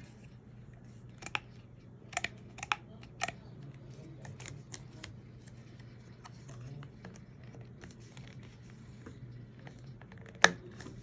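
Handling sounds: a few sharp clicks and knocks, the loudest near the end, over faint rustling, with no vacuum motor running.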